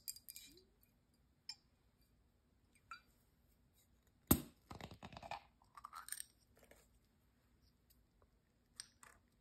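Metal twist cap being unscrewed from a glass bottle of sparkling apple juice. The seal breaks with one sharp crack a little past four seconds in, followed by a short fizzing hiss of escaping carbonation. Near the end come a few light clicks as the cap is set down on the table.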